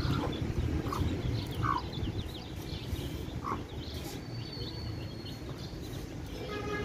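Domestic chicks peeping in many quick, short high chirps, with a few louder single calls spaced about a second apart in the first half. A low, steady rumble of background noise runs underneath.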